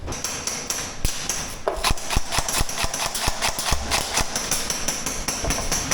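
Airsoft gunfire: a rapid run of sharp cracks, about four to five a second, starting about two seconds in, over a steady high-pitched whine.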